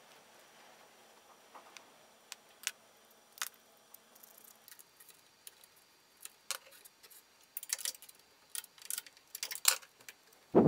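Light clicks and taps of a plastic belt tensioner and its bolts being handled and fitted against an aluminium extrusion frame. A few at first, then many close together in the second half, ending in one louder knock.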